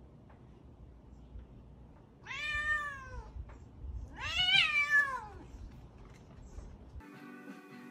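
Domestic cat meowing twice, two long drawn-out calls that rise and fall in pitch, the second louder.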